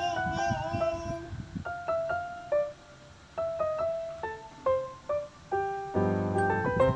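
Cute background music: a piano-like keyboard plays a melody of short separate notes, growing fuller with low chords near the end.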